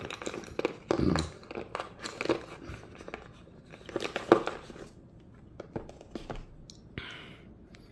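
Rustling and crinkling of an iPad Pro box's cardboard and paper packaging with small knocks and clicks as the charging cable and power adapter are taken out. The sharpest knock comes about four seconds in.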